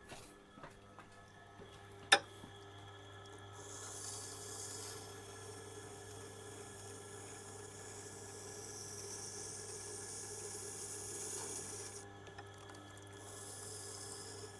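Hard tool-steel oboe reed scraping tool being ground on a Tormek wet grinder's 220-grit stone: a gritty scraping hiss over the grinder motor's steady low hum. A sharp click comes about two seconds in, and the grinding breaks off briefly near the end before resuming.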